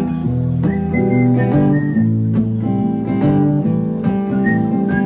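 Acoustic guitar strumming chords in a steady rhythm, with a few short whistled notes over it, about a second in and again near the end.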